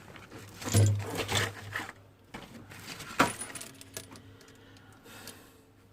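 A few light clinks and knocks, as of small hard objects being handled, with a cluster about a second in and one sharp click about three seconds in.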